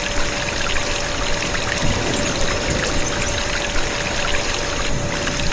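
A thin stream of water from a small tube pouring and splashing over a miniature toy tractor, with a steady high hum underneath from the small electric water pump feeding it.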